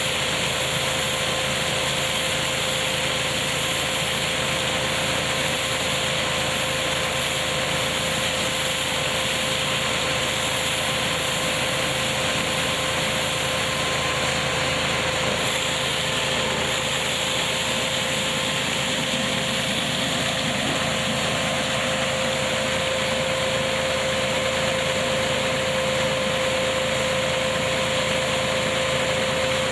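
Tractor-driven hazelnut picking machine running steadily: a constant rushing machine noise with a steady hum-like tone, unchanging throughout.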